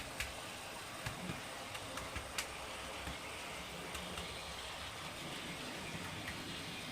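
Thunderstorm sound effect played through a Broadway thunder-and-lightning effects unit: a steady hiss with a few sharp crackles in the first two and a half seconds and a low, uneven rumble of thunder from about a second in.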